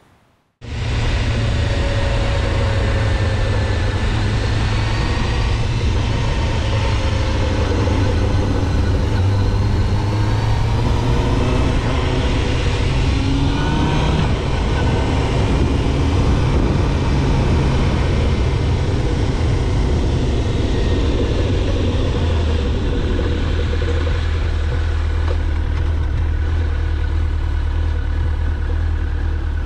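Sport motorcycle engine running while being ridden, heard from an onboard camera with a steady rush of wind and road noise. It starts abruptly about half a second in, and the engine note rises and falls with the throttle, climbing noticeably around twelve to fourteen seconds in.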